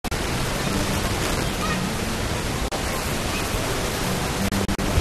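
Loud, steady hiss across the whole range, starting suddenly and cutting out for a split second once in the middle and a few times near the end.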